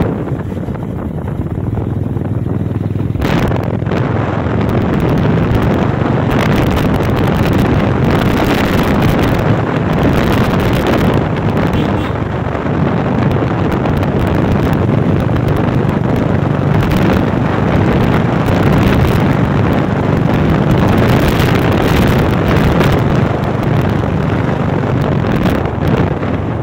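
Royal Enfield motorcycle riding along, its engine running under heavy wind buffeting on the microphone. The wind noise gets louder and harsher about three seconds in.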